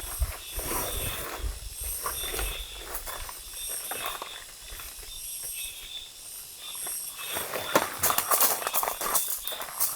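High-pitched insect chirring that pulses about twice a second. In the last couple of seconds a run of sharp clicks and knocks, like gear being handled, is louder than the chirring.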